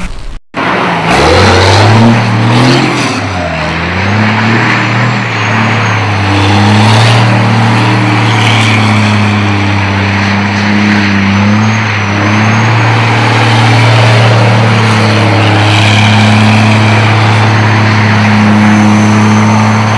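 Race truck's diesel engine revving up and down a few times, then running at a steady speed.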